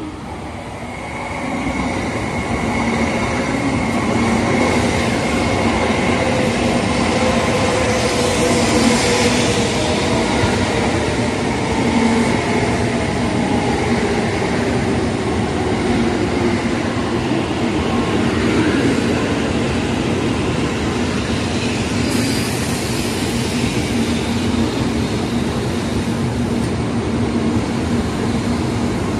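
Tokaido Shinkansen N700-series train pulling into the platform and running close past with a steady rumble. Its motor whine falls slowly in pitch as the train slows for the station stop.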